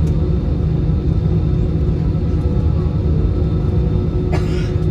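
Steady cabin rumble and hum of an Airbus A320-216's CFM56 engines, heard from inside the cabin over the wing while the aircraft taxis. A brief higher, scratchy noise comes near the end.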